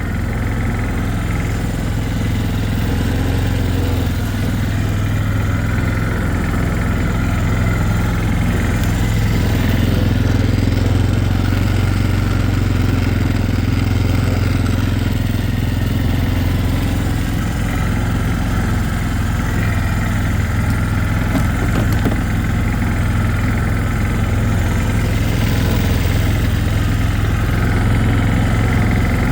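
Four-wheeler (ATV) engine running steadily while it is ridden in four-wheel drive through deep snow.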